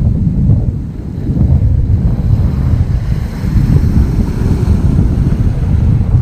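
Wind buffeting the microphone in a heavy low rumble, over the wash of choppy sea waves.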